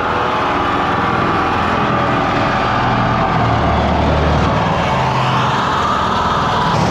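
Electric reciprocating saw cutting through the corrugated steel wall of a shipping container, running steadily and loudly.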